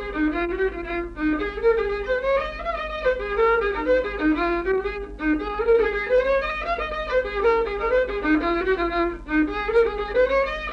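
Fiddle playing a lively dance tune of quick, running notes, over a steady low hum.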